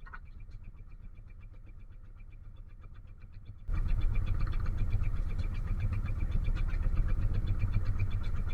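Boat engine running steadily with a low rumble and a rapid, even ticking; the sound steps up abruptly in level a little under four seconds in.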